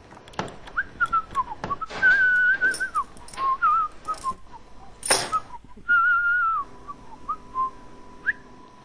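Someone whistling a short, wandering tune, with scattered clicks and knocks and one louder knock about five seconds in.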